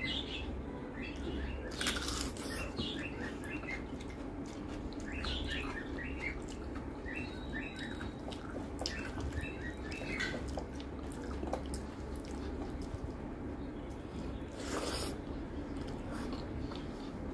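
Fingers mixing and mashing rice with dal on a metal plate, a run of small wet squishing and clicking sounds with a couple of sharper clicks, then a mouthful being eaten near the end.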